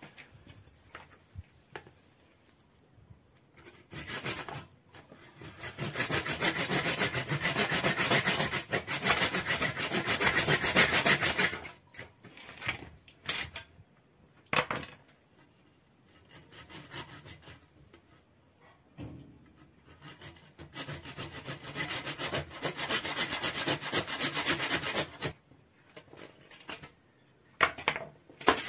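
Hand saw cutting the horns off a severed animal head, rapid back-and-forth strokes through horn in two long bouts of about six and five seconds, with shorter scrapes between.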